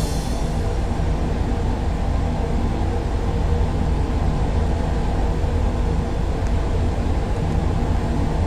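Ceiling fan running: a steady low rumble with an airy hiss over it.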